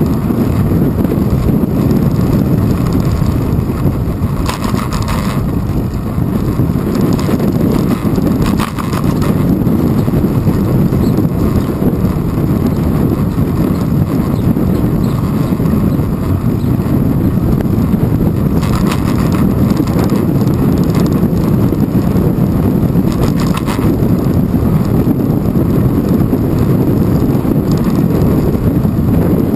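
Strong wind buffeting the microphone of a handlebar-mounted GoPro Hero 2 on a moving bicycle, with tyre and road rumble: a loud, steady low rumble. A handful of brief rattles break through as the bike rolls over the cracked path.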